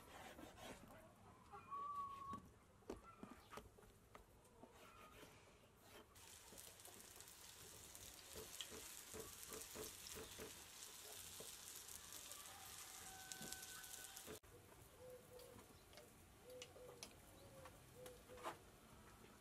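Pieces of dough frying in oil in a pan, a soft sizzle that starts about six seconds in and stops abruptly at about fourteen seconds, with light clicks as a fork turns them. Faint birdcalls now and then.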